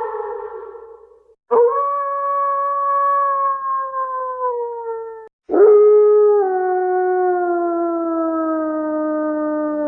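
Canine howling: a howl fading out, then two long howls that each start abruptly and slide slowly down in pitch, the last one held about six seconds.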